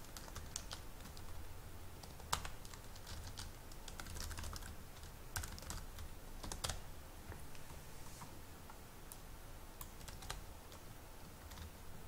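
Typing on a computer keyboard: irregular keystrokes, busier in the first half and thinning out to scattered taps later.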